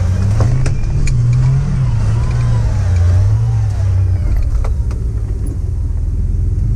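Turbocharged TB42 straight-six of a GQ Nissan Patrol competition truck running under load, its pitch rising and falling as the throttle changes, heard from inside the cab. A few sharp knocks from the truck body come through, several in the first second or so and two near the five-second mark.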